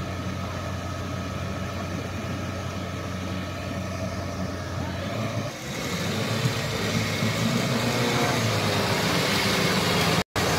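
Suzuki Jimny engine running with a steady low hum, then about halfway through it grows louder and rougher as the stuck jeep works its way through deep mud. A brief break in the sound near the end.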